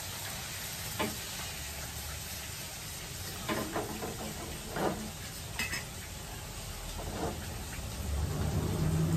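Beaten egg sizzling steadily in an oiled frying pan, with a few sharp clinks of a spoon stirring beaten egg in a steel bowl.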